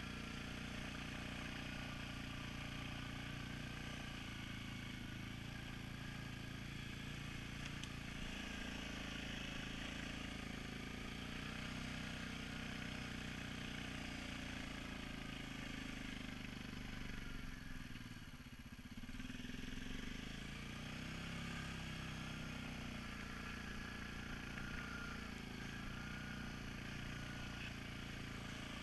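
Suzuki King Quad 750 ATV on a rubber track kit, its single-cylinder engine running steadily while riding. About two-thirds of the way through the revs drop briefly and then climb back up.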